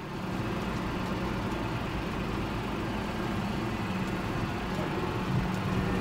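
John Deere tractor engine running steadily as heard from inside the cab, the sound coming up as the tractor sets off across the field.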